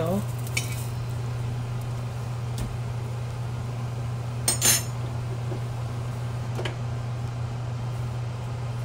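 A few light clinks of metal kitchen utensils against cookware, the loudest about four and a half seconds in, over a steady low hum.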